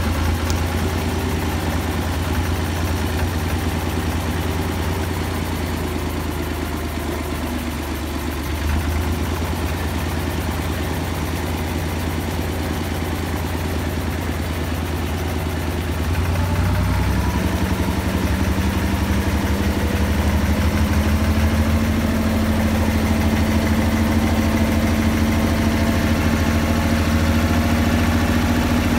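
Štore 404 tractor's diesel engine running steadily while driving; about sixteen seconds in it gets louder and its pitch then climbs slowly as the revs rise.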